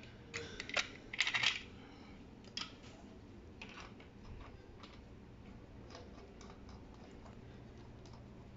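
Steel timing-chain links clinking and rattling against the cam sprocket as the chain is fitted by hand on a Dodge 3.7 V6. A quick flurry of clinks comes in the first second and a half, a few single clicks follow, then only faint ticks.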